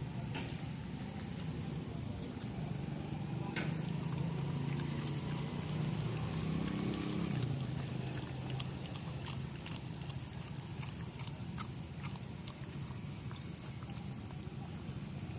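Puppies grunting and snuffling, with scattered small clicks and a steady high hiss behind.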